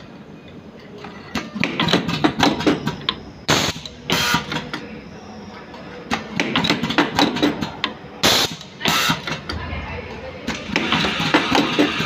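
Automatic Type-C connector soldering machine cycling. Its pneumatic cylinders give pairs of short air hisses about half a second apart, repeating roughly every four and a half seconds, with clicking and clattering of the mechanism in between.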